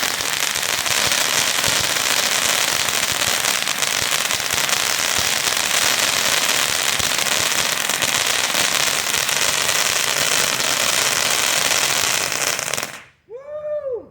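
Phantom Crown Jewel 500-gram ground fountain spraying sparks, a steady dense hiss thick with fine crackling, that cuts off suddenly about a second before the end. A brief rising-and-falling voice call follows.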